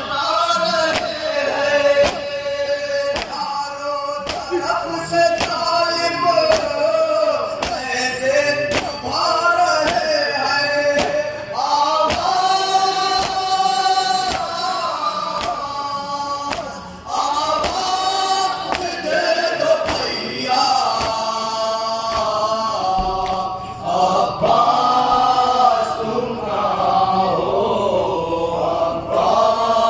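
A group of men chanting a nauha, a Muharram lament, in unison, over a steady beat of open-handed chest-beating slaps (matam).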